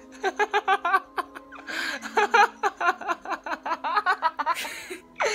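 Child giggling in quick, breathless bursts of laughter, with a short pause near the middle before a second long run of giggles.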